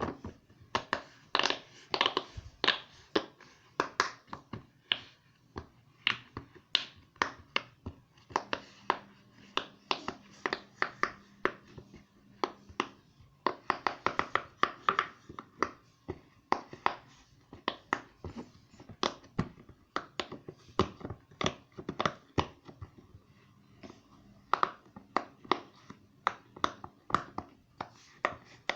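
Silicone pop it fidget toy being pressed bubble by bubble: a quick, irregular run of sharp little pops, several a second, with a couple of short pauses.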